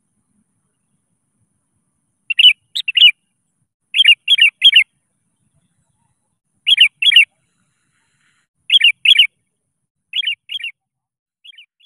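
Sooty-headed bulbul (kutilang) calling to a rival: short phrases of two or three quick, clear notes, repeated every couple of seconds. It starts about two seconds in and grows fainter near the end.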